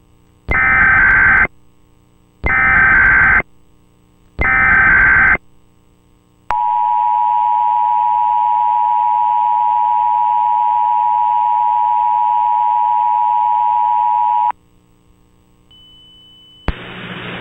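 Emergency Alert System header: three SAME data bursts of rapid digital tones, about a second each and evenly spaced, then the two-tone EAS attention signal held steady for about eight seconds and cut off sharply. A hiss starts just before the end.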